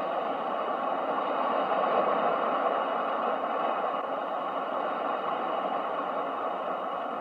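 Ocean waves washing, a steady rushing noise that swells gently about two seconds in and then slowly eases.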